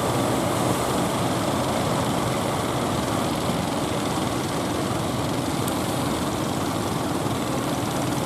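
Steady, even rumble of heavy surf mixed with fishing-boat engines running.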